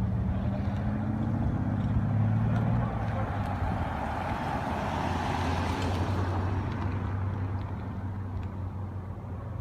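1971 Jeep Jeepster Commando engine running as it is driven, its note rising briefly then easing, with a rush of road noise swelling midway. The sound gradually fades toward the end.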